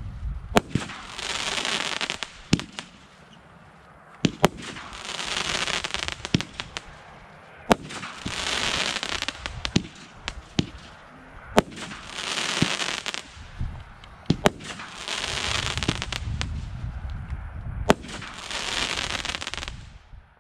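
Blackboxx Heyloo firework battery firing: sharp reports of shots launching and bursting every couple of seconds, with a swell of crackling about every three and a half seconds.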